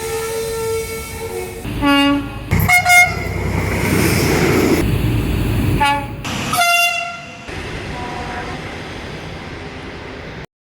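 Train horns sounding in a string of separate blasts: one held for about a second and a half, then several short toots, with the running rumble of a train between them. A faint last blast comes a little after eight seconds in, and the sound cuts off about ten and a half seconds in.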